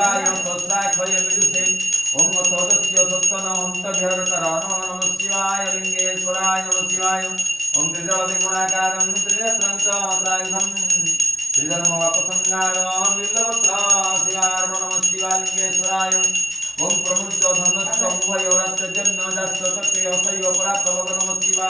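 A man's voice chanting Sanskrit mantras to Shiva in a sustained, melodic recitation, in phrases of a few seconds with short breaks. A small bell jingles continuously behind it.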